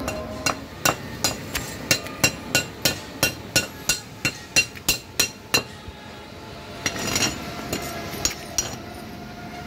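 A small steel hammer striking an arc-weld bead on a square steel tube to knock off the slag: a quick run of sharp metallic strikes, about three a second for some five seconds, then a few more scattered taps near the end.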